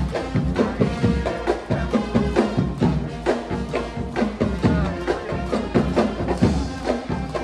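Music with a steady percussive beat under a melody.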